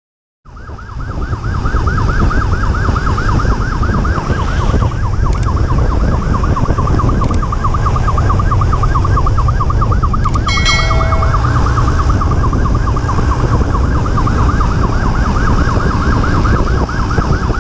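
Police motorcycle siren wailing in a fast, repeating yelp over heavy low wind and engine rumble from riding at speed, with a short horn blast about ten seconds in.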